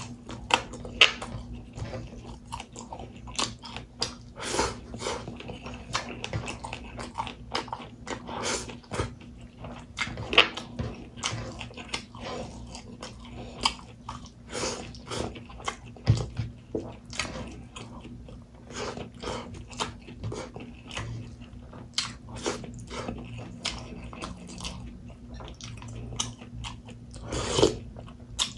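Close-miked mouth sounds of someone eating rice and pork by hand: chewing, lip smacks and many wet mouth clicks, irregular and continuous, with a louder smack just before the end. A faint steady hum runs underneath.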